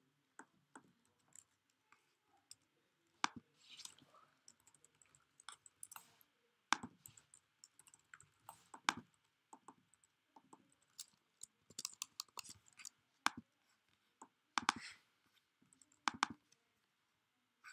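Faint, irregular clicks and taps of a computer keyboard and mouse being worked, with a couple of short, softer rushing noises about four and fifteen seconds in.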